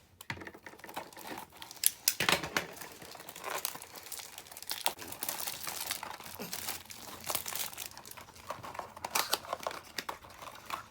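Blind-box packaging being unwrapped: plastic and cardboard crinkling and rustling, with irregular sharp crackles and some tearing, loudest about two seconds in.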